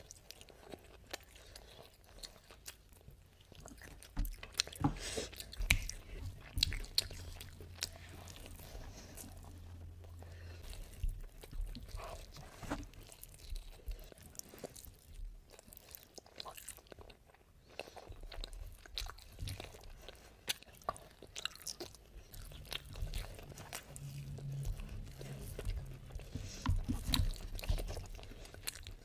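Close-miked chewing of a mouthful of mutton biryani, with wet mouth smacks and sharp clicks at an irregular pace. The clicks are busiest a few seconds in and again near the end.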